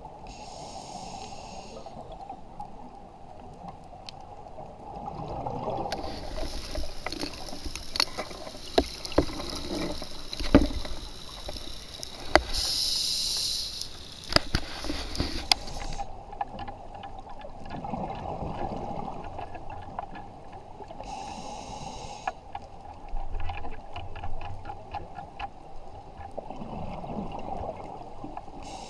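Underwater breathing of a scuba diver through a regulator: hissing breaths with bubbling and crackling in between, heard through an underwater camera housing. A long, louder stretch of hiss and sharp clicks fills the middle, with shorter hissing breaths near the start, about two-thirds of the way in and at the end.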